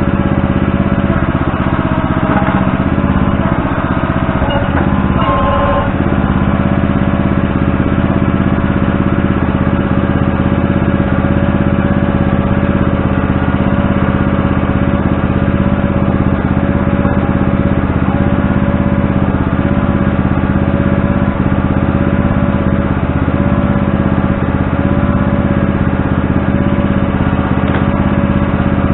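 Engine of a digging machine running steadily while footing holes are dug, with a brief change in its sound about five seconds in.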